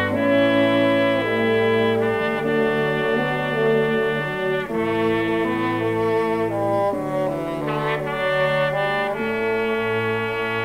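Background music of held, sustained chords that change every second or two.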